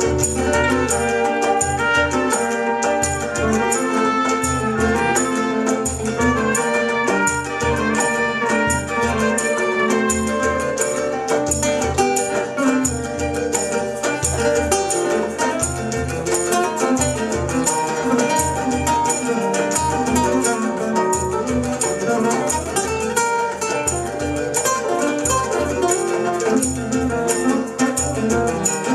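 Live Cape Verdean blues band playing: a trumpet leads at the start and drops out partway through, while acoustic and electric guitars carry on over a steady low beat.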